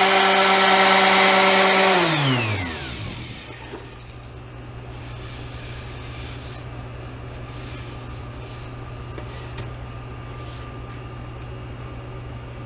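Dewalt DWE6423K 5-inch random orbit sander running on wooden boards, then switched off about two seconds in, its whine falling in pitch as it spins down over a second or so. A faint steady low hum remains afterwards.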